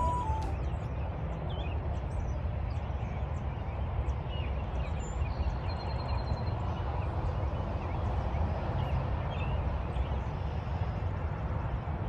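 Steady low outdoor rumble, with faint short bird chirps scattered through it.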